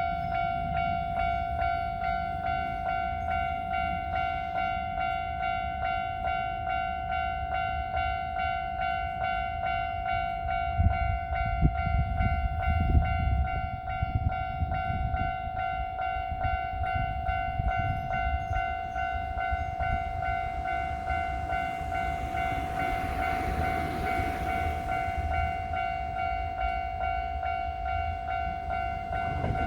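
Level-crossing warning bell ringing continuously while a Kintetsu train passes the crossing, with a rumble and wheel knocks about eleven seconds in. A rushing hiss of a passing train follows about twenty-two seconds in.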